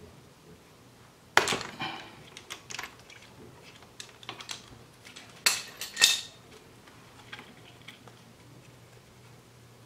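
Sharp metal clinks and taps of a spark plug socket and the spark plug against the cylinder head of a Yamaha TDR250 two-stroke twin as the plug is taken out. There is a loud clink about a second and a half in and two more around five and a half to six seconds, with lighter taps between.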